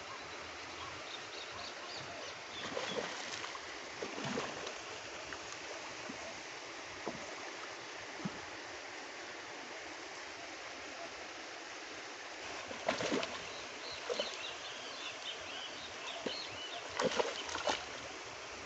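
A hooked fish splashing and thrashing at the water's surface as it is played on rod and line and brought into a landing net. There are a few splashes about 3 and 4 seconds in, and again around 13 and 17 seconds, over a steady hiss.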